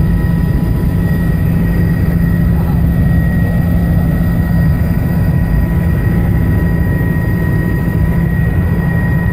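Helicopter in flight heard from inside its cabin: a loud, steady drone of engine and rotor with several constant high whine tones over it.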